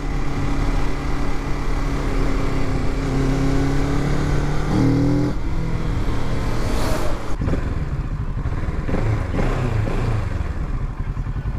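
Kawasaki Z650 parallel-twin motorcycle engine running under way, over a steady rush of wind noise. The engine note climbs briefly about five seconds in, then drops away as the throttle is eased and the bike slows.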